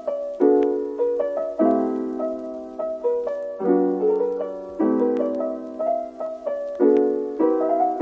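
Background piano music: soft chords struck every second or two, each fading away, with a gentle melody line above.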